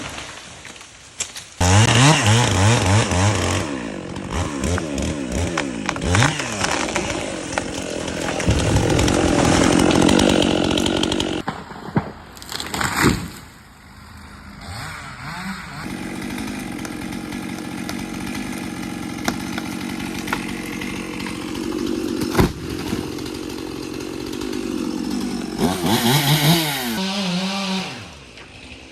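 Chainsaws running and cutting in several short spliced-together clips, the engine revving up and down and then running steadily under load, with sudden jumps where one clip cuts to the next.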